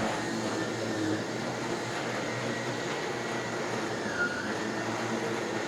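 Miele Solaris canister vacuum cleaner running at its lower 700-watt setting, its gentle-bristled brush head working over a mattress. The motor holds a steady whir, with a brief dip in its high tone about four seconds in.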